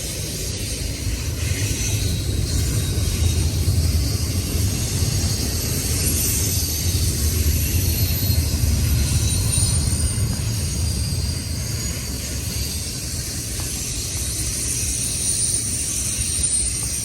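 CN freight train rolling past on the rails: a steady low rumble with a high hiss from the wheels on the track, swelling a little in the middle and easing off slightly toward the end.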